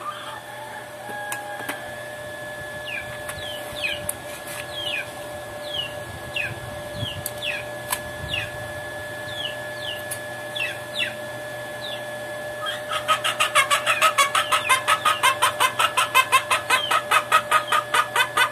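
Chickens calling: scattered short falling peeps through the first part, then a fast, even run of loud clucks, about six a second, from about two-thirds of the way in. A steady hum runs underneath.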